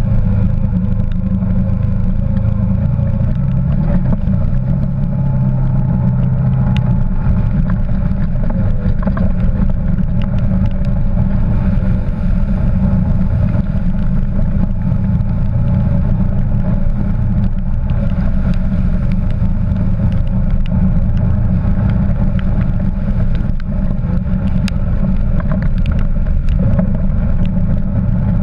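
Quad bike (ATV) engine running steadily under way, heard up close from the bike itself, a loud, low, even drone. Near the start the wheels throw up spray as it drives through floodwater.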